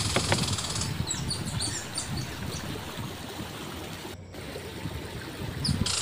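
Rustling and handling in leaf litter and undergrowth, with a quick run of short, high bird chirps between about one and two and a half seconds in. A steady high drone cuts out about a second in and comes back near the end.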